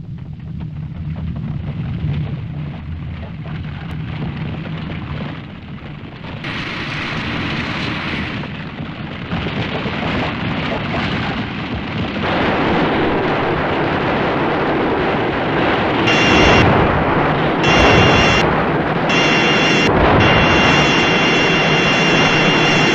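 Kaiju-film sound effects from Toho's library: a low rumble that grows louder and noisier in steps over the first half. From about two-thirds of the way in, a high steady ray-beam tone cuts in and out several times over the rumble as the tripod monster fires its beam.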